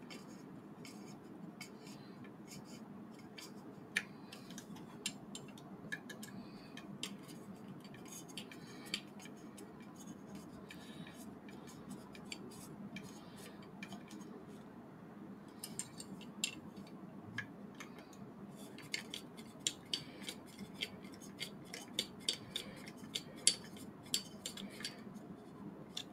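Small metal model parts and a small screwdriver clicking and tapping as screws are worked into a T-800 model's head assembly: scattered sharp clicks over a faint steady hum, becoming more frequent in the second half.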